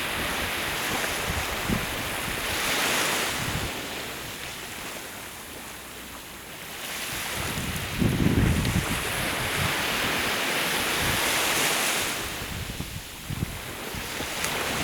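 Sea waves washing up on the shore, surging twice, with wind gusts buffeting the microphone.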